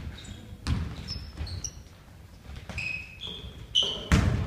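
Basketball play on a hardwood gym floor: a ball thumps on the floor about a second in and louder near the end, with short high sneaker squeaks in between.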